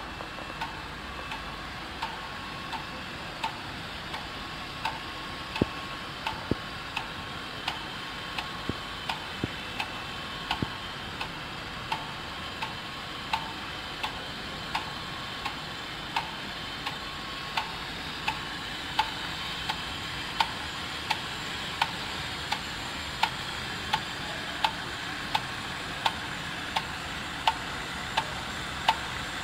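RFID dry-inlay laminating machine running, with a steady hum and a sharp click repeating evenly, roughly three clicks every two seconds, one per machine cycle.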